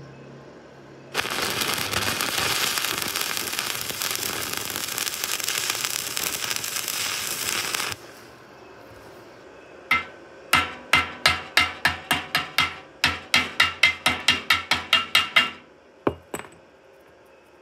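Electric arc welding on steel rebar: a loud, steady crackling hiss for about seven seconds that stops abruptly. About two seconds later comes a run of some twenty sharp, ringing metal strikes at three to four a second, then two more near the end: a hammer knocking slag off the fresh weld.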